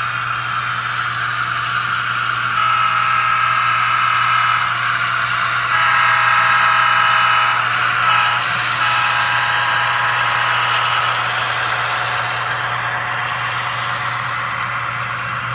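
Diesel locomotive horn sounding over a steady engine rumble, in the grade-crossing pattern of long, long, short, long.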